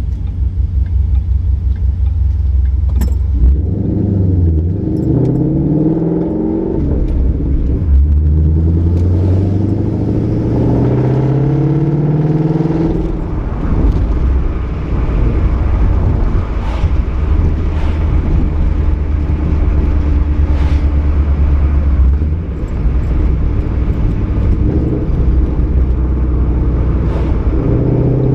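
Ford Mustang 5.0's V8 running through a Roush axle-back exhaust and off-road X-pipe on a drive, with a steady low rumble. The engine note climbs in pitch twice under acceleration, once a few seconds in and again in a longer pull near the middle.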